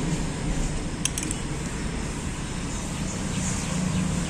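Steady background traffic noise, with a few quick light clinks about a second in.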